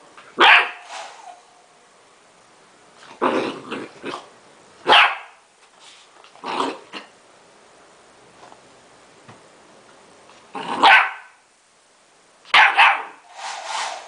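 Golden retriever puppy barking at a hair dryer, about ten short barks, single or in quick pairs, with pauses of a second or more between them.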